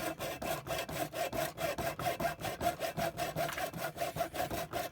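Handsaw cutting through the thick plastic casing of a router clamped in a vise, in rapid, even back-and-forth strokes, several a second.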